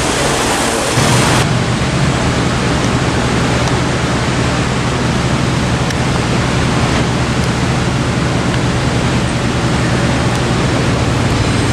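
Steady rushing noise with a low steady hum underneath, from a Southern Class 377 Electrostar electric multiple unit drawing in towards the platform; the hum sets in about a second in.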